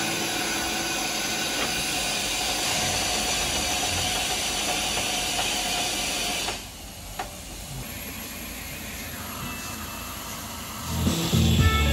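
Steam hissing steadily from a WD Austerity 2-10-0 steam locomotive. About six and a half seconds in it drops suddenly to a quieter hiss, and music begins near the end.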